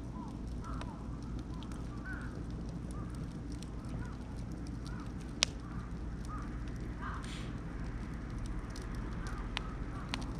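Beech and oak campfire crackling over a steady low rumble, with scattered pops and one sharp, loud pop about five seconds in. Short squeaky chirps recur throughout.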